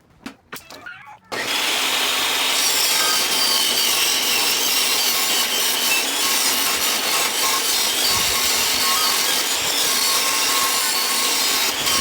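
A few light knocks, then an electric sander switches on about a second in and runs steadily against wood.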